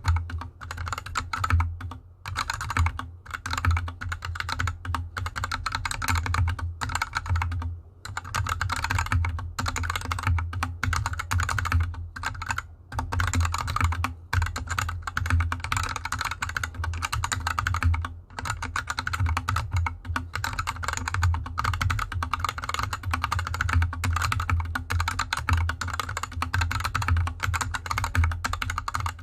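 Mechanical keyboard with unlubed Gateron Yellow linear switches and DSA keycaps (GK64X 60% hot-swap board) being typed on fast and continuously on a desk mat, with a few brief pauses between bursts of keystrokes.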